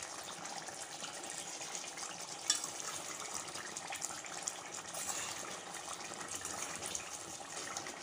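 Chicken karahi gravy simmering in a pan, a steady bubbling and sizzling hiss with a ladle stirring through it. A short knock about two and a half seconds in.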